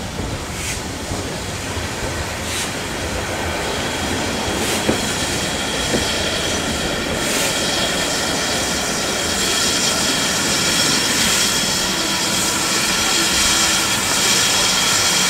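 A steam-hauled train running on the rails: a steady rumble of wheels on track with a few sharp clicks, getting steadily louder.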